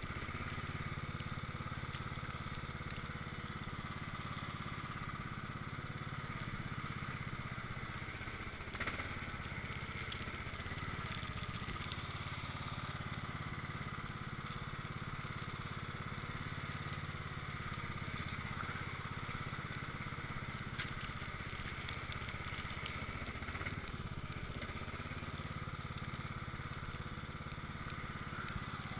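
Cub Cadet XT1 lawn tractor's engine running steadily under load as its front blade pushes heavy snow, with one brief knock about nine seconds in.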